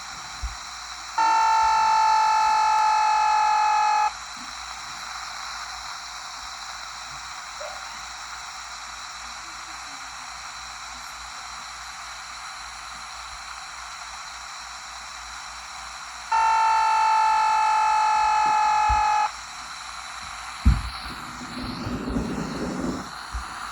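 Baby walkie-talkie hissing with static, broken twice by a loud buzzing tone about three seconds long, the two about fifteen seconds apart: radio interference picked up by the unit. A thump and some rustling near the end.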